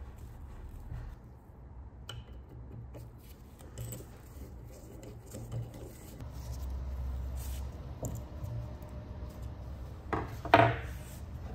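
Handling and assembly noises from a steel dumbbell end on its wooden handle: light rubbing and small clicks as a hex key works the bolt in the centre recess. Near the end comes one sharp metallic clink with a short ring.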